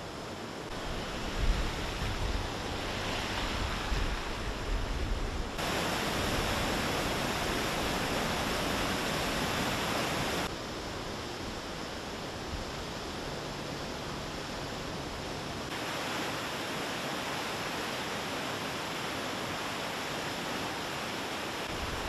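Steady rushing of fast-running flood water from a rain-swollen stream, jumping in level at each cut. Low gusty rumbling in the first few seconds.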